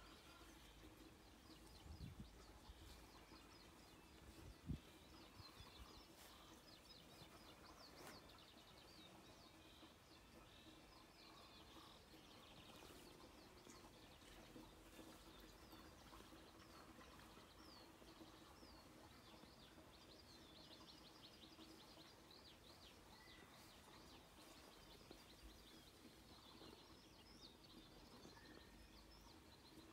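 Faint birdsong: small birds chirping and twittering on and off throughout, over a faint steady hum. Two brief low bumps, the louder one near five seconds in.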